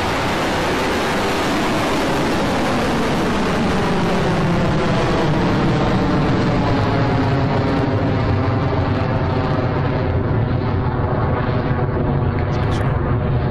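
Rocket Lab Electron rocket lifting off, its nine Rutherford first-stage engines making a loud, steady rumbling roar. The high hiss in the roar fades over the last few seconds as the rocket climbs away.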